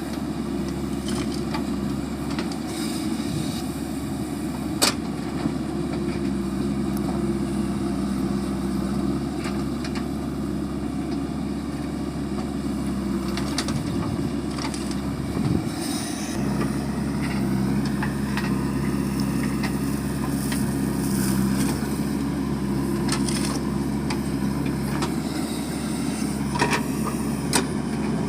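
Diesel engine of a JCB 3DX backhoe loader running steadily at work, with its note briefly dropping and shifting about halfway through. A few sharp knocks come through over it.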